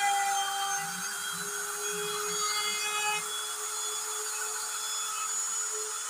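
Handheld router used as the spindle of a DIY CNC machine, running at speed with its bit cutting a carved pattern into an MDF panel: a steady high whine over the hiss of the cut.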